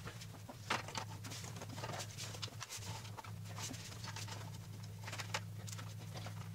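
Gloved hands working the lower VANOS solenoid free from an N55 engine, giving scattered small clicks and rustles, over a steady low hum.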